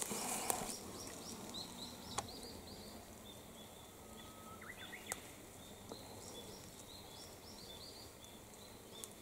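Faint woodland ambience of short high chirps repeating many times, with a whistle gliding upward about four to five seconds in and sharp snaps about two and five seconds in.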